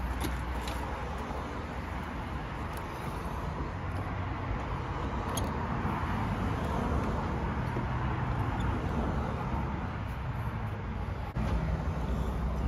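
Steady road traffic noise from passing vehicles, swelling gently and easing off, with a deeper rumble coming in near the end. A faint click sits about five seconds in.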